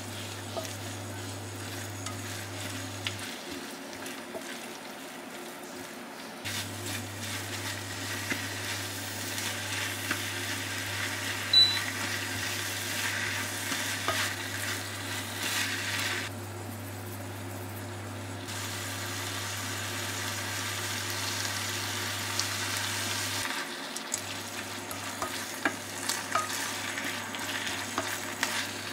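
Zucchini noodles and chopped vegetables sizzling in a frying pan while being stirred and tossed with a spatula, with soft scrapes and an occasional clink against the pan. A steady low hum runs underneath.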